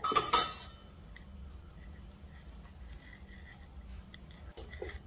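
Steel kitchen vessels clinking against each other, a few ringing knocks in the first half-second, then faint taps over a low steady hum.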